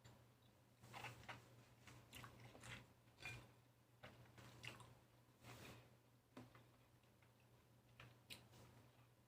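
Faint wet chewing and mouth smacks of someone eating lychee fruit, in irregular short clicks.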